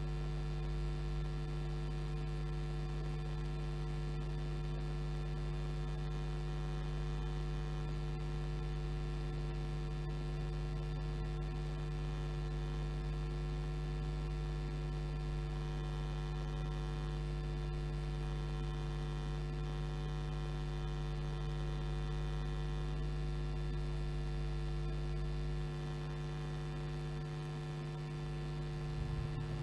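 Steady electrical mains hum: a constant low buzz with a stack of higher overtones, with no engine or track sound heard over it.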